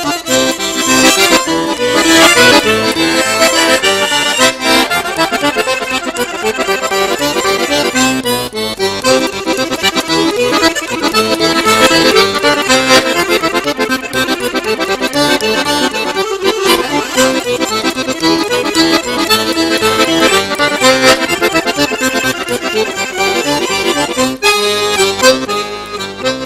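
Solo piano accordion playing a fast, busy piece, with quick runs of notes that go on without a break.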